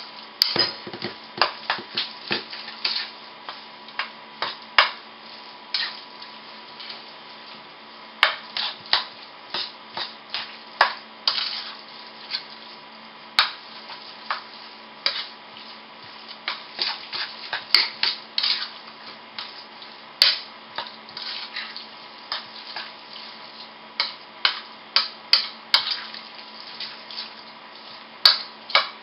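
A spoon stirring a raw ground-beef meatloaf mixture in a stainless steel mixing bowl: irregular clinks and scrapes of the spoon against the metal bowl, a few a second, with soft squishing of the meat.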